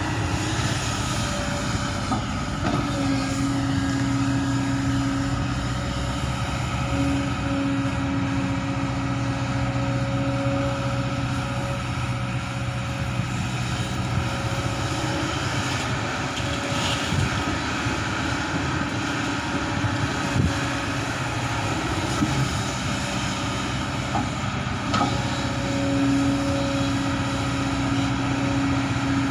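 Large Kobelco excavator's diesel engine running steadily under work, with a whine that comes and goes several times as it works.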